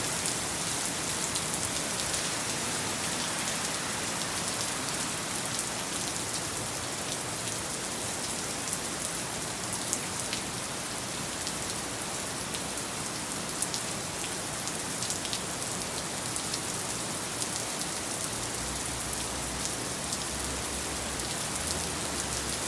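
Heavy rain falling steadily, with many individual drops ticking on surfaces. A low hum comes in near the end.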